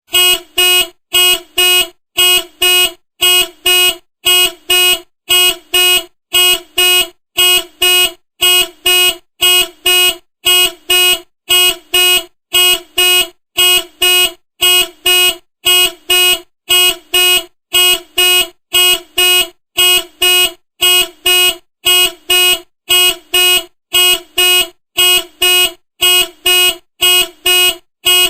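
Car horn sounding in short repeated beeps, about two a second, each a steady pitched tone.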